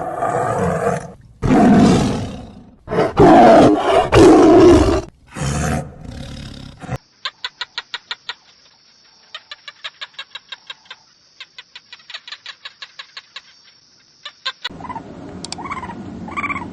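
A large animal's loud, rough calls, six of them in quick succession, followed by a quieter stretch of fast, evenly spaced clicking over a steady high tone that stops about two seconds before the end.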